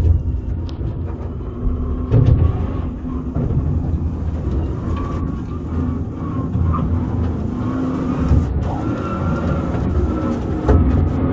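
Low-profile underground coal-mine vehicle running through a low seam with a rider aboard: a steady rumble with a faint wavering motor whine and a few knocks and rattles.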